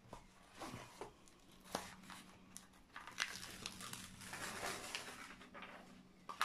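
Diamond-painting canvas and its protective plastic film rustling and crinkling as hands lift and smooth them, in short irregular bursts that grow busier and louder in the second half.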